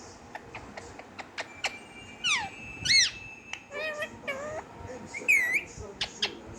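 Pet parrot calling: a run of sharp clicks, then several short whistled calls that fall, arch and waver in pitch, with a loud dipping whistle about five seconds in.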